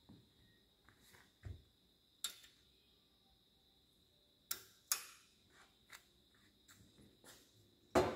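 Scattered light clicks and knocks of hand tools being handled against a steel tool rack, with a louder metallic clatter near the end.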